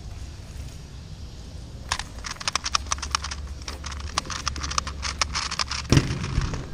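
Rubik's Clock being speedsolved: a fast, dense run of small clicks as pins are pushed and dials flicked for about four seconds. It ends about six seconds in with a loud thump as the clock is set down and the hands come down on the Speed Stacks timer to stop it.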